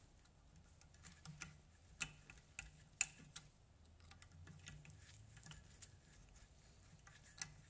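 Scattered light metallic clicks and taps of a hand tool picking pieces of a broken hub bearing out of the quad's rear hub, with a few sharper ticks about two and three seconds in and near the end.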